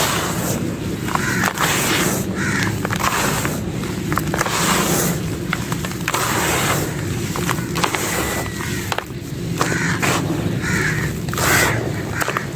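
Dry clay crumbling and crunching, a continuous run of crisp crackles and gritty crunches as pieces break apart.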